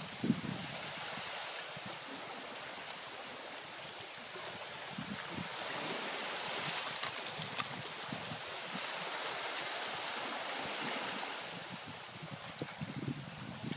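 Lake Superior water surging in and out through slushy floating ice at a rocky shore: a rushing, sloshing hiss that swells through the middle and eases near the end, with scattered low knocks and a few sharp clicks from the ice and rocks.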